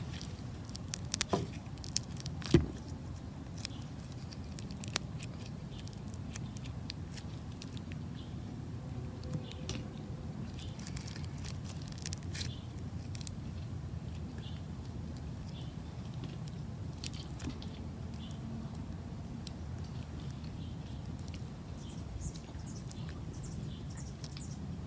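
Clear slime being squeezed and kneaded in a hand, giving scattered small clicks and pops, densest in the first few seconds, over a steady low rumble.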